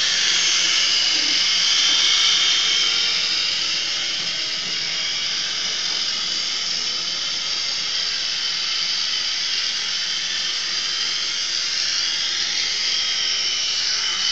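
Syma S026G Chinook-style toy RC helicopter in flight: a steady high-pitched whine from its small electric motors and twin rotors, wavering slightly in pitch.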